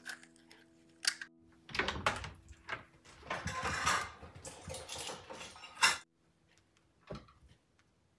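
Guitar music fading out, then a few seconds of irregular clattering and clicking that ends in one sharp click.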